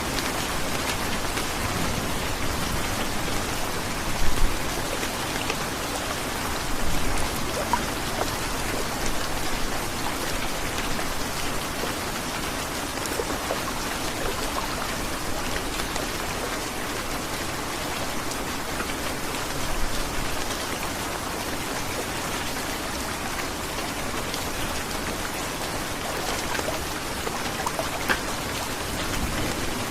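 Heavy rain falling steadily, a dense even hiss with a few brief louder spatters.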